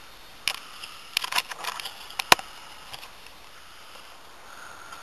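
A few scattered clicks and knocks of handling, with one sharp click a little after two seconds in.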